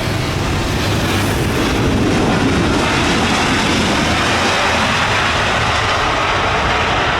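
Boeing 737-800's jet engines on a landing approach: a loud, steady rushing noise that swells a couple of seconds in.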